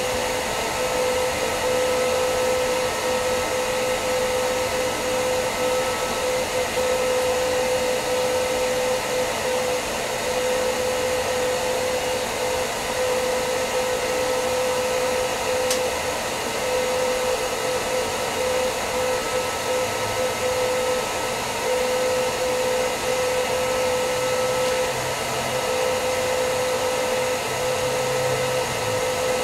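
Blacksmith's forge fire burning under forced air: a steady rushing whir from the forge's blower with a constant hum running through it.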